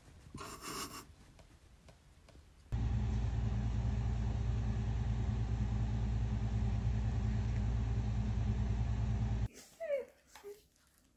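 A cat purring, loud and close, with a steady low rapid pulsing that starts suddenly about three seconds in and cuts off about two seconds before the end. Just before it comes a brief, faint kitten mew.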